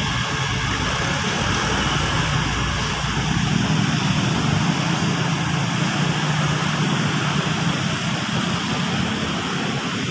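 Steady noise of heavy city road traffic: cars, buses and motorbikes running close by, with a constant low engine hum.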